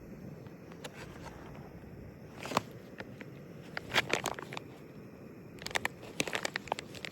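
Foil-lined freeze-dried meal pouch being handled and opened, crinkling in short sharp crackles that come in clusters about two and a half seconds in, around four seconds in and around six seconds in.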